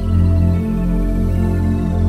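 Background music: slow ambient music of long held tones over a steady low drone.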